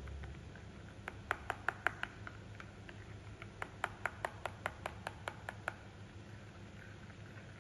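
A run of sharp, quick taps or clicks, about four or five a second, in two bursts with a short pause between.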